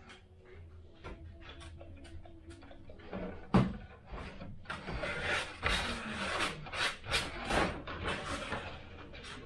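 Workbench handling noises as a servo extension lead is fed through a model aircraft's tail: scattered light clicks and taps, a sharper knock about three and a half seconds in, then a few seconds of scraping and rustling.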